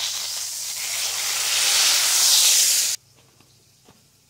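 Food sizzling in a frying pan: a loud hiss that swells and then stops abruptly about three seconds in.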